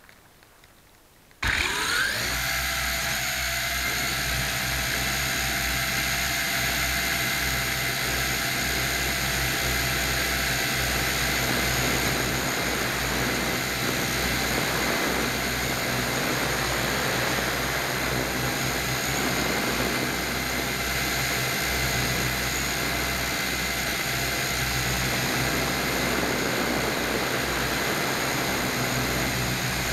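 Electric motors and propellers of a small remote-control aircraft, heard up close through its onboard camera, powering up for takeoff from the grass. They start suddenly about a second and a half in, rise briefly in pitch, then run at a steady whine.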